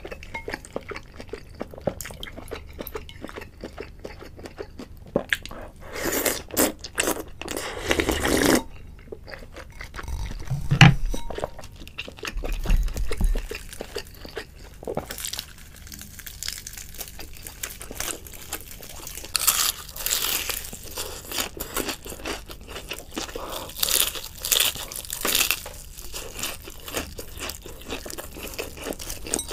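Close-miked eating: chewing, with bursts of crunchy bites into deep-fried chicken with a crisp breaded crust. A single dull thump, the loudest sound, comes about eleven seconds in.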